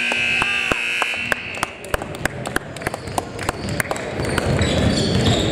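Gym scoreboard horn sounding the end of the game: a steady buzz that cuts off about two seconds in, with a few sharp knocks under it.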